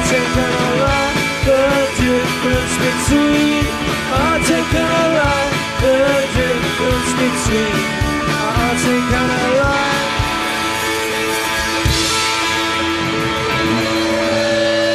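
Live rock band playing the instrumental end of a song: drums, bass and electric guitars, with a lead guitar line of bending notes. About ten seconds in, the drumbeat stops and the band holds a ringing chord, with a cymbal wash.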